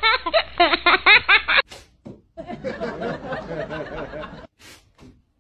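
Dubbed-in human laughter sound effect. Rapid high snickering runs through the first second and a half and stops abruptly. After a short gap, a quieter stretch of chuckling follows and ends about a second before the close.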